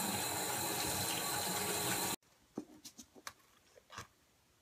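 A steady rushing hiss, like a running tap, that cuts off abruptly about two seconds in. It is followed by near quiet with a few faint, short clicks.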